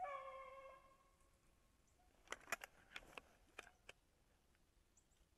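A beagle's bay: one long, slightly falling howl of about a second, the voice of a hound running a rabbit. Then a quick run of sharp clicks and snaps, about eight of them over a second and a half.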